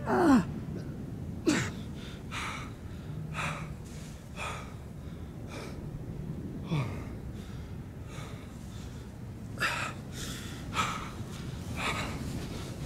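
A person breathing hard in ragged breaths, about one a second, broken by a few short whimpering gasps that slide down in pitch. The loudest gasp comes right at the start.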